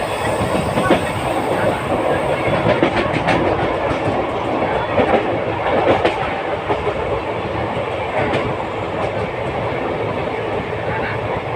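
Passenger train coaches running along the track, heard from on board: a steady rumble with the wheels clicking over rail joints.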